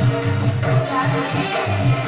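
Loud devotional music with a steady drum beat under sustained pitched tones.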